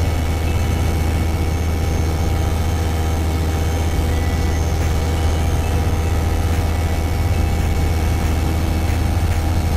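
Hi-Max ultralight aircraft's engine and propeller droning steadily in flight, heard from inside the cockpit.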